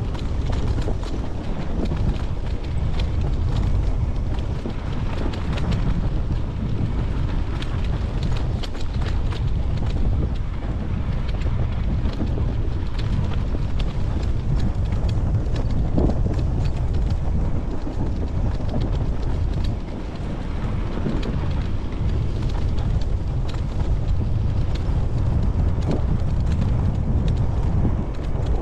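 Dirt bike running as it rides over rough grassy ground, largely covered by heavy wind buffeting on the microphone, with scattered knocks throughout.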